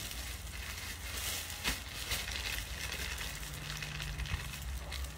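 Clothes rustling as a blouse is handled and pulled on, with a few light knocks over a low steady hum.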